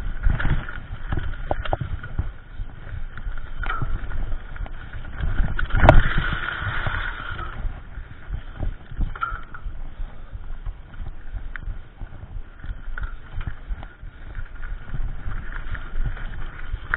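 Mountain bike clattering over a bumpy dirt trail, heard from an action camera mounted on the bike: a constant run of small knocks and rattles, with one hard jolt about six seconds in.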